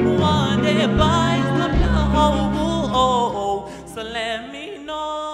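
A male singer sings live into a handheld microphone over backing music with a deep bass line. The backing drops out about four seconds in, leaving his voice alone.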